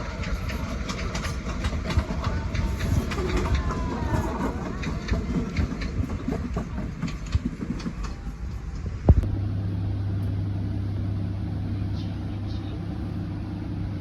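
Vehicle travel noise: a rattling, clattering ride for about nine seconds. Then, after a sharp click, a steady low engine hum.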